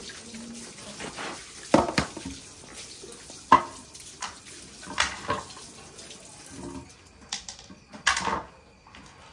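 Water running from a tap into a basin, with several sharp knocks and clatters, about 2, 3.5, 5 and 8 seconds in, as a plastic hose and basins are handled.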